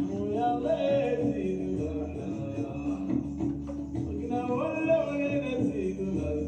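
Music with a singing voice over steady held instrumental tones.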